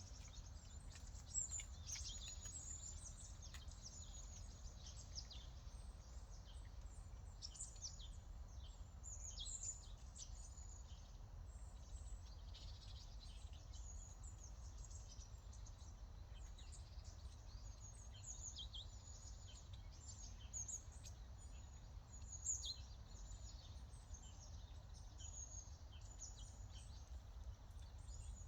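Small birds chirping and twittering: many short, high calls coming thick and fast, over a steady low rumble.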